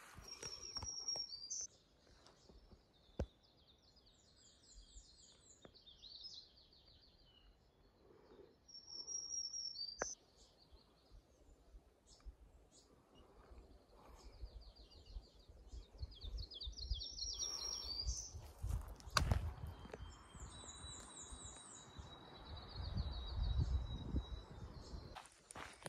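Songbirds singing: repeated high trilled phrases and chirps, one after another. A low rumble comes in during the last third.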